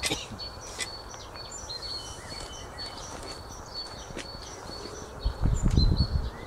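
Small birds chirping with short, high repeated calls over a quiet outdoor background, with a couple of sharp clicks near the start. About five seconds in comes a brief loud low rumble, like wind or handling noise on the microphone.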